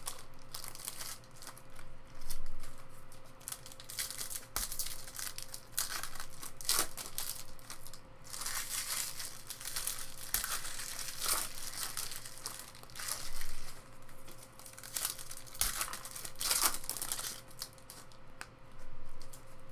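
Foil trading-card packs being torn open by hand and the foil wrappers crinkled, in an irregular run of crackling and tearing, under a faint steady hum.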